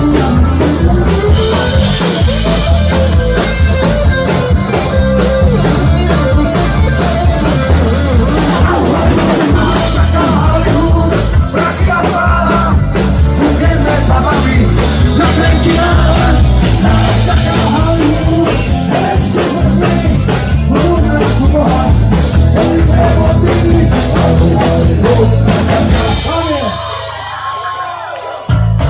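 Punk rock band playing live: drums, guitars and bass with singing. The song ends about 26 seconds in, its last chord ringing down, and a sharp hit comes just before the end.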